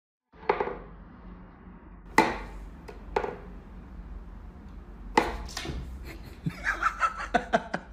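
Several sharp knocks about a second apart, then a quicker run of short taps near the end, over a low hum.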